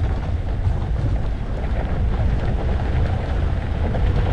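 Steady wind rushing over the microphone on the deck of a bass boat being towed on its trailer along a road, a loud, deep rumble.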